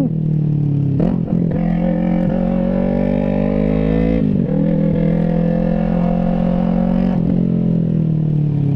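Yamaha MT-03's parallel-twin engine through an exhaust with no muffler, riding under power. Its pitch climbs steadily and dips briefly about a second in, near four seconds and near seven seconds, as gears change.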